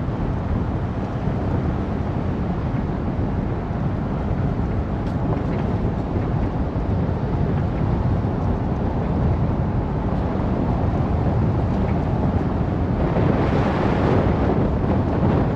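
Vehicle driving on a dirt forest road: steady low road and tyre noise mixed with wind buffeting the microphone, growing hissier near the end.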